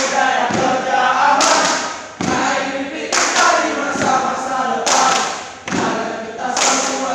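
A group of voices chanting and singing a yel-yel team cheer in unison, like a choir. It is broken by a loud thump every second or so, in time with the routine.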